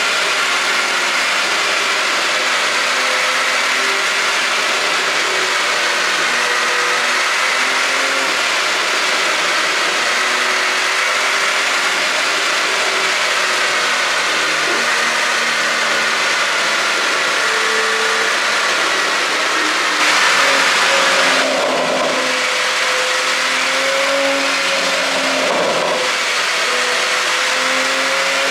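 Porsche Panamera 4's twin-turbo V6 engine running through its tuned exhaust, the revs drifting up and down, with a louder stretch about twenty seconds in and a few brief sharp sounds after it.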